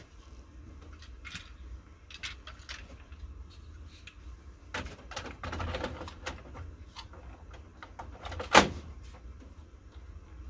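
Plastic parts and covers of an HP office printer being handled during a maintenance-kit install: scattered clicks and knocks, a stretch of scraping and rattling about five seconds in, then one loud snap about eight and a half seconds in as a part is pushed home.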